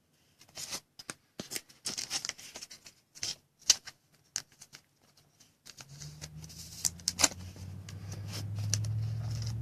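Trading cards and their plastic sleeves being handled: a string of sharp clicks, taps and rustles. About six seconds in, a steady low hum starts and grows louder.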